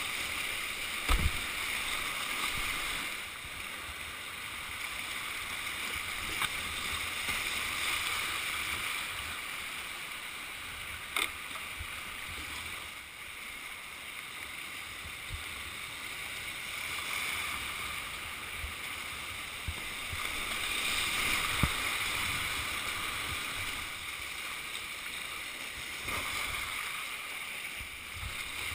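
Whitewater rapids rushing around a kayak, swelling and easing as the boat moves through the drops, with a few sharp knocks along the way.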